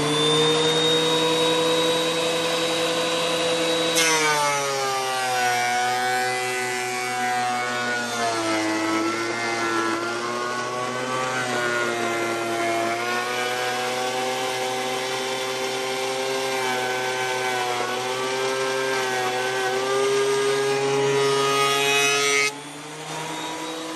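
DeWalt benchtop thickness planer running. About four seconds in, a pressure-treated 2x10 feeds through the cutterhead, adding a loud cutting noise and pulling the motor's pitch down under load, where it wavers as the board passes. Near the end the board clears the cutterhead and the motor runs free again, its pitch rising.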